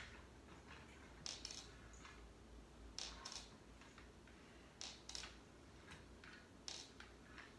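Faint, soft swishing sounds from a person doing sit-ups on an exercise mat, one double swish about every two seconds, four in all, in time with each repetition.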